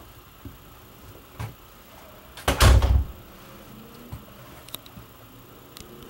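A single dull thump about two and a half seconds in, lasting about half a second, with a few light knocks before and after it.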